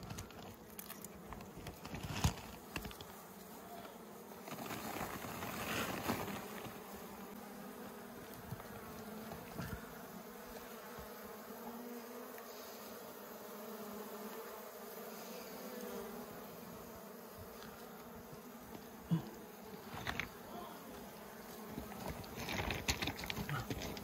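Wild honeybees buzzing in a steady hum as the colony is scooped by hand out of a rock crevice, with a few short knocks and rustles of handling.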